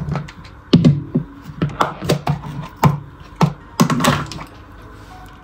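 Plastic parts of a small electric food chopper clicking and knocking as its push-button motor head and lid are taken off the bowl: a string of irregular sharp taps and thuds that stops about four seconds in.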